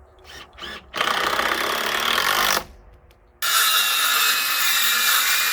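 A power tool running in two bursts: one starts about a second in and stops, and a second starts about halfway through and keeps going with a steady whine.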